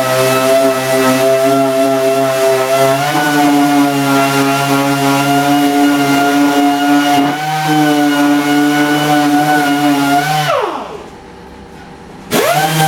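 Orbital sander running steadily while sanding plastic filler on a car bumper. About ten and a half seconds in it is switched off and winds down with a falling pitch, then starts up again with a rising pitch near the end.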